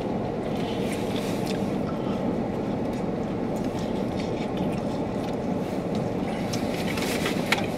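Steady low hum and hiss inside a car cabin from the idling engine and air-conditioning fan, with a few faint clicks and one sharper click near the end.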